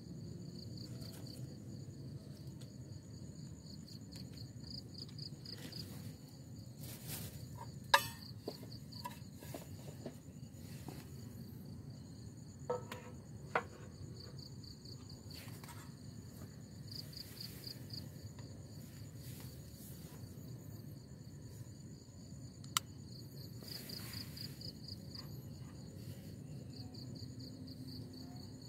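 Insects chirping in repeated high, pulsing trills, over a low steady rumble. A few sharp clicks cut through, the loudest about eight seconds in.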